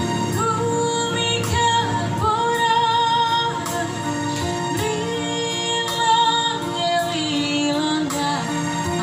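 A girl singing a melody through a microphone, accompanied live on a Yamaha PSR-S950 arranger keyboard with a drum rhythm underneath.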